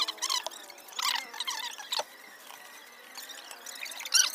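Hands handling a new motorcycle stator and its wiring harness as it is fitted into the metal generator cover: light clicks, metal-on-metal taps and plastic rustling, in scattered bursts with a louder cluster near the end.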